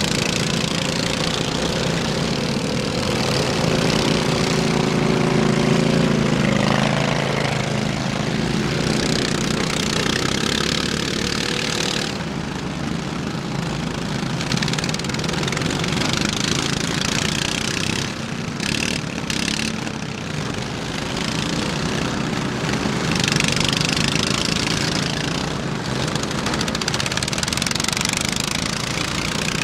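Several riding lawn mower engines running together as the mowers drive and push against each other in mud. One engine's pitch shifts about seven seconds in.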